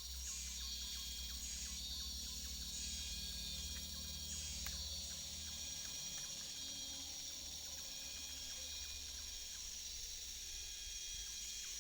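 Steady chorus of insects in tropical forest: a high shrill hiss with a constant high-pitched tone, swelling and easing every second or two, over a faint low rumble.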